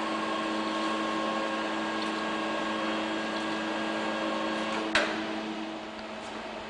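Electric gear motor turning a parts-unloading table, running with a steady hum. About five seconds in there is a sharp click, after which the hum is quieter.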